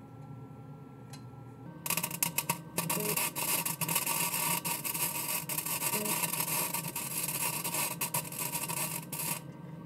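Century FC90 flux-cored wire-feed welder's arc crackling as a bracket is welded onto a go-kart frame. The arc strikes about two seconds in with a few sputtering starts, then crackles steadily for about seven seconds and cuts off.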